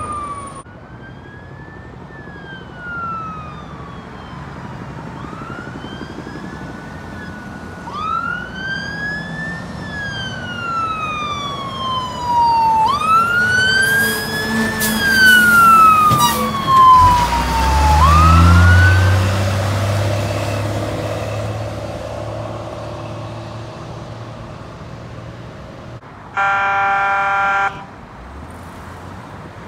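Fire water tender's siren wailing, sweeping slowly up and down as it approaches and passes, with a burst of rushing noise and its diesel engine rumbling by just after the halfway point. Near the end, a single horn blast of about a second and a half.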